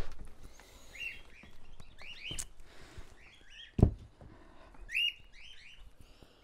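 Small songbirds chirping and singing in short repeated phrases. About four seconds in there is a single heavy thump, a footstep landing as someone steps down out of a caravan doorway onto the platform, and a sharp click comes a little before it.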